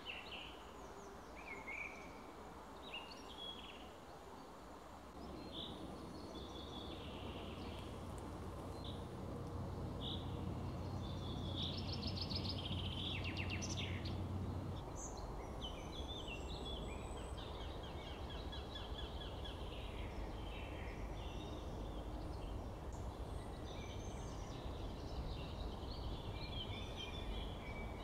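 Several small songbirds singing and calling in a mix of short chirps and trills, over a low rumble that swells from about five seconds in and drops off around fifteen seconds.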